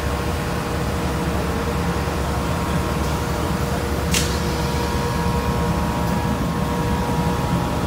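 Steady low drone of heavy machinery running, with a constant hum over it; a single short sharp click a little past four seconds in.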